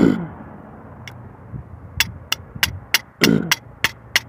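Background music with a fast, even ticking beat, about three ticks a second. The beat drops out for under two seconds partway through and then returns.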